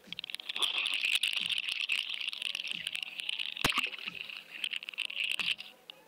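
Clicking and rattling over a steady high hiss, picked up through the housing of a GoFish underwater camera on a fishing rig as it is cast and sinks, with one sharp click about two thirds of the way in. The hiss cuts off shortly before the end.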